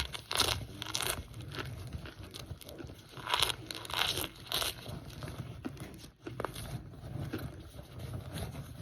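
Biting and chewing a baked, microwaved pressed brick of Kingsford's cornstarch: a series of sharp, dry crunches, loudest in a cluster of three about three to four and a half seconds in, with softer crackling between.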